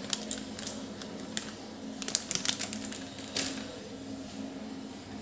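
Scattered sharp clicks and taps of a utensil against a steel bowl of raw mutton being seasoned with turmeric and spice powder, with a cluster of quick clicks about two seconds in, over a steady low hum.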